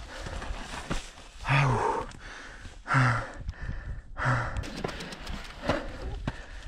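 A man breathing hard from exertion, letting out a short vocal out-breath four times, about every second and a half, while pushing an e-bike up a steep rocky climb; faint scuffs and clicks of feet and bike on rock between the breaths.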